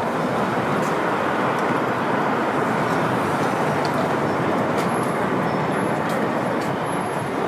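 Steady city street traffic: a continuous wash of road noise from cars moving through an intersection.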